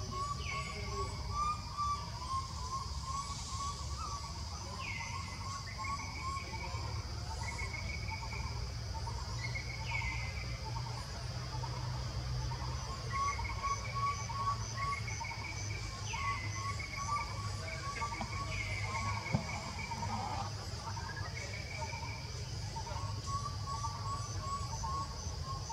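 Forest ambience: a steady high-pitched insect drone with fast pulsing, repeated whistled calls that drop and then hold a note, and a fast trilling call, over a low rumble.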